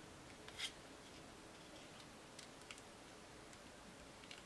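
A handful of faint clicks from the buttons and control dial of a Canon EOS Rebel SL2 DSLR being pressed and turned, over near-silent room tone; the sharpest click comes about half a second in.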